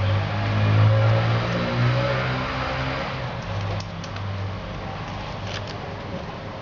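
A motor vehicle's engine passing by, loudest about a second in, changing pitch in steps and then fading away. A few faint clicks near the end.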